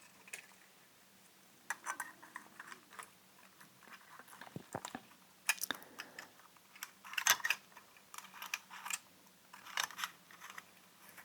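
Irregular small clicks, taps and scrapes of the Panasonic LX7's plastic lens-barrel parts being handled and pushed together, in scattered clusters.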